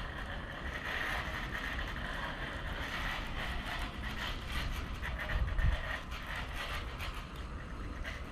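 A hand pump sprayer spraying a bleach and soap solution with a steady hiss, with wind rumbling on the microphone and a low thump about five and a half seconds in.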